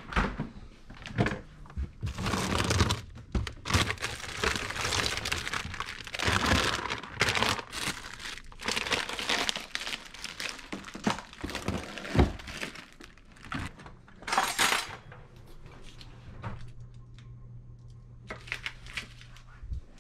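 Refrigerator door pulled open, then rummaging through the fridge shelves: plastic packaging crinkling and jars and containers knocking and clinking, with a steady low hum underneath. The handling dies down in the last few seconds.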